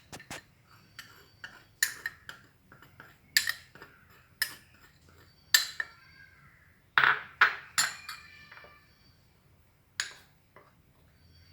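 A spoon clinking and knocking against a bowl, a dozen or so irregular sharp strikes, some with a short ring, as spices and paste are spooned onto raw chicken.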